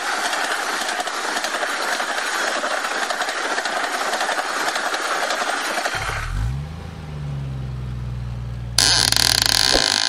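Animation sound effects: a steady rushing noise of a passing vehicle. About six seconds in, a low engine sound rises in pitch and holds steady. Near the end a loud railroad crossing warning bell starts ringing, the loudest sound here.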